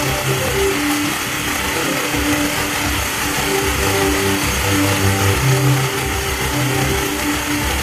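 Background music: a low bass line and a higher line of held notes that change every half second or so, over a steady noisy wash.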